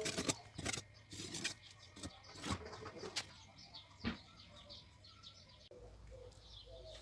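A chef's knife working around the rim of a baked quiche, short crunches and taps as overhanging shortcrust pastry breaks off, spaced about half a second to a second apart. Near the end a pigeon coos a few times in the background.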